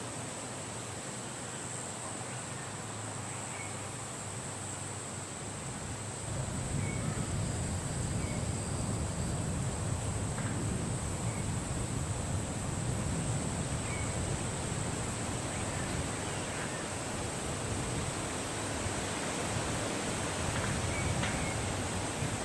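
Wind blowing steadily, rising to a stronger low rumble about six seconds in, with faint, scattered short bird chirps and a steady high-pitched hiss over it.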